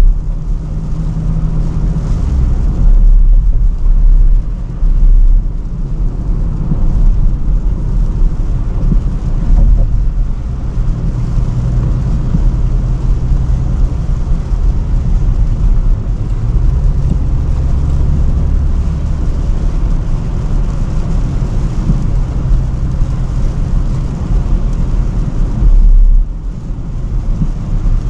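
Range Rover Sport on the move: a low engine drone that shifts in pitch a few times, over steady road and tyre noise.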